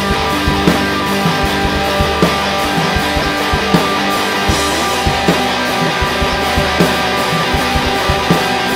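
Post-punk rock band music: distorted electric guitar chords held over a drum kit beat.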